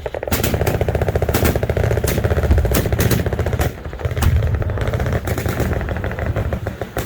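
Machine guns firing in long, overlapping automatic bursts: a very rapid rattle with a heavy low rumble under it and sharper single reports cracking through, easing briefly a little past halfway.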